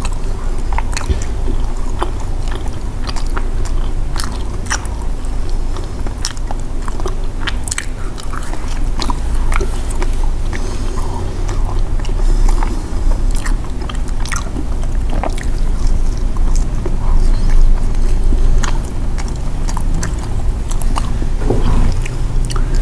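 Close-up chewing and biting of sweet potato and cassava snack balls, many small sharp clicks of mouth and bite sounds.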